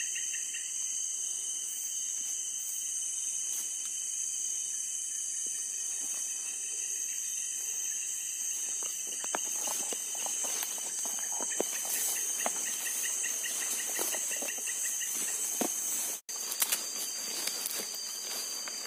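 Steady night chorus of crickets and other insects, several high trills layered together. From about halfway through there is irregular rustling and crunching of grass and leaves underfoot as someone moves through the vegetation. The sound drops out for an instant near the end.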